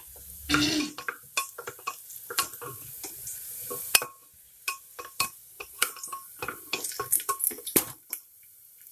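Wooden spatula stirring lightly browned onions and green chillies in hot oil in a pressure cooker: irregular scrapes and knocks against the pot, with the oil crackling.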